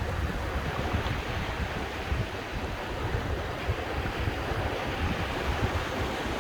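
Sea surf washing steadily, with wind buffeting the microphone in a low, uneven rumble.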